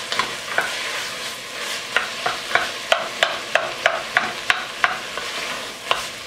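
Wooden spoon stirring diced onion, celery, carrot and mashed cauliflower frying in butter in an enameled cast-iron Dutch oven: a steady sizzle with the spoon knocking and scraping against the pot about three times a second.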